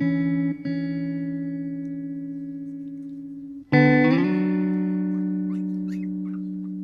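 Background music: plucked guitar chords, each struck and left to ring and slowly fade. A new, louder chord comes in a little past halfway.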